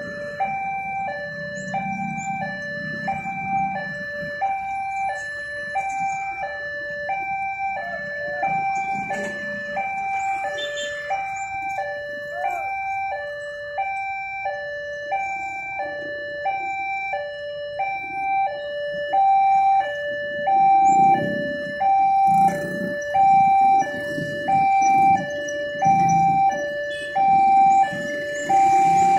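Railway level-crossing warning alarm sounding a steady two-tone alternating high-low chime, about once every second and a half, warning that a train is approaching. Underneath is a low rumble of engines that grows louder in the second half.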